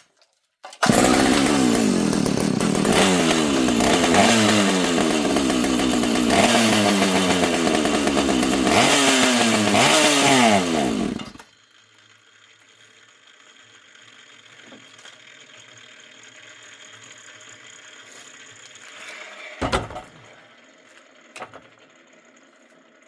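Two-stroke chainsaw firing up about a second in and being revved up and down repeatedly, then cutting out suddenly about eleven seconds in. The owner takes the stall for fuel starvation from a fuel line that isn't drawing fuel. A single thump follows later.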